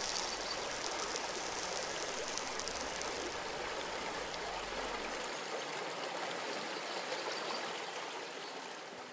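Running river water, a steady rush with small splashes, fading out toward the end. A low rumble beneath it stops about five seconds in.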